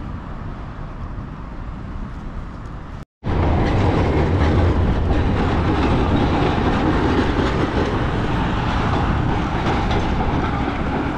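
Okayama streetcar running along its rails through an intersection: a steady, loud noise of wheels on track mixed with street traffic. It starts after a brief cut to silence about three seconds in, and the street sound before the cut is quieter.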